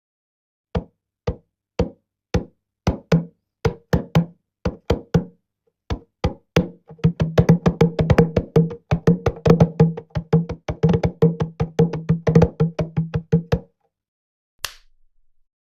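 A bongo played by hand: single strikes about twice a second, then a fast, dense run of hits that stops suddenly. A single sharp click comes near the end.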